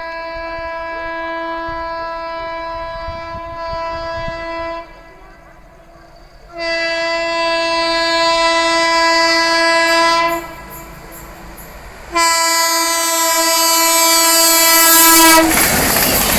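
Locomotive horn of the Howrah–Mumbai Duranto express sounding three long blasts of about four seconds each, louder with each blast as the train comes on at about 110 km/h. Near the end the horn stops and the loud rush and clatter of the train's wheels on the track takes over.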